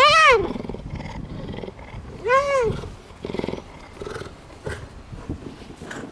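Cougar calling: two short high-pitched calls about two seconds apart, each rising then falling in pitch.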